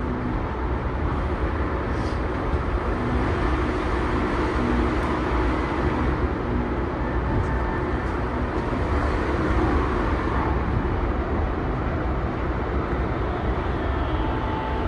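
Tokyu 2020 series electric train running at speed, heard from inside the car: a steady rumble of wheels on rail with faint steady tones from its Mitsubishi full-SiC MOSFET VVVF traction motor drive.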